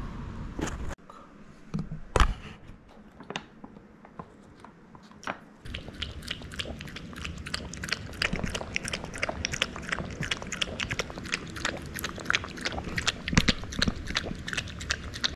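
Shih Tzu lapping a thin liquid from a small ceramic bowl: a few scattered laps at first, then from about five and a half seconds in a quick, steady run of wet tongue laps against the bowl.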